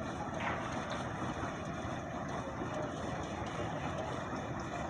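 Maxxi Bimo 102 combine harvester running steadily with a constant engine drone.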